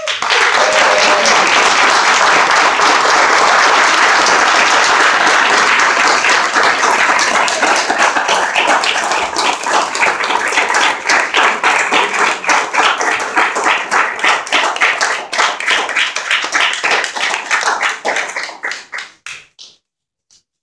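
Crowd applauding: the clapping starts all at once and is dense for the first several seconds, then thins into scattered individual claps that die away near the end.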